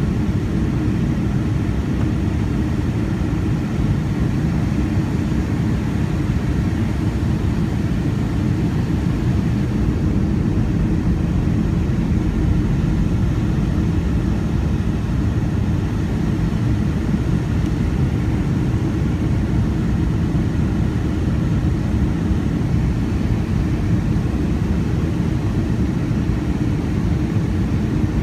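Steady cabin noise of a Boeing 757-200 heard from a window seat beside the wing during the descent to land: jet engines and rushing air, mostly a low rumble with faint steady tones above it.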